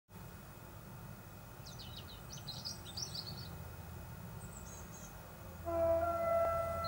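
Songbirds chirping, then near the end a distant train horn sounds a long steady note, the train warning of its approach to the level crossing. A low steady rumble runs underneath.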